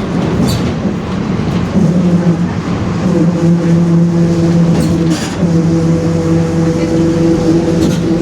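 Differential of a Mercedes-Benz OF-1721 city bus howling very loudly while the bus is under way: a steady whine that sets in about two seconds in, grows stronger a second later and drops out briefly about five seconds in, over the running noise of the bus.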